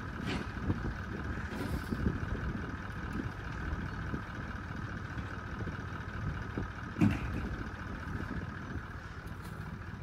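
Vehicle engine running at low speed while it slowly manoeuvres a trailer through a tight space, with a single clunk about seven seconds in.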